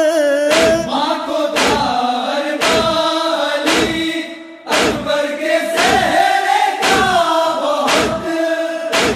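Urdu noha: male voices chanting the melody in chorus, with long held notes, over a heavy chest-beating (matam) thump about once a second. The sound dips briefly about four and a half seconds in.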